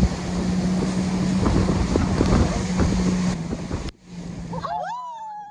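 Wind buffeting the microphone and rushing water, with the steady hum of the towing speedboat's engine, while riding a towed banana boat at speed. The sound cuts off abruptly about four seconds in. A few faint gliding, falling tones follow.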